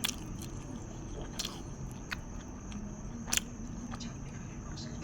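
A person eating close to the microphone, with a few sharp mouth clicks and smacks about a second apart over a steady low hum.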